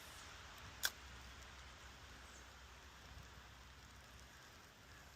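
Faint, steady outdoor background hiss, with one short, sharp click about a second in.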